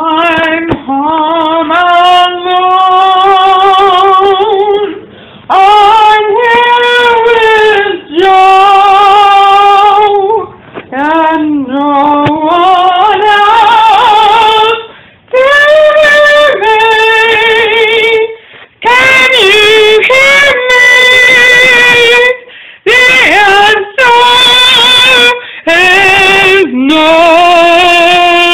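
A woman singing a cappella in long held notes with vibrato, each lasting a few seconds, with short breaks between them for breath.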